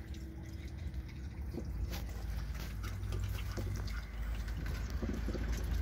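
Scattered faint taps and scrapes of dogs' paws on clay bricks and concrete, over a steady low rumble.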